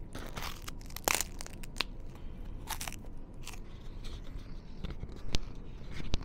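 Several short bursts of rustling, crinkling handling noise, followed by a few sharp clicks.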